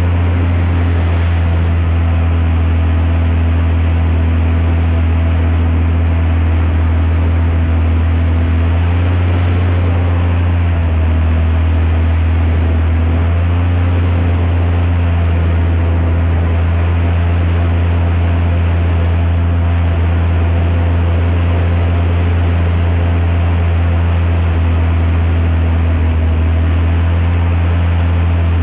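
Airboat's Lycoming aircraft engine and propeller running steadily at cruising speed, a loud deep drone with a rushing noise over it; the engine pitch shifts slightly a few times partway through.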